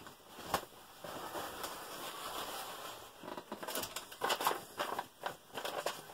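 Food packaging rustling and crinkling as it is handled: a steady rushing noise for about two seconds, then a run of sharp crackles and clicks.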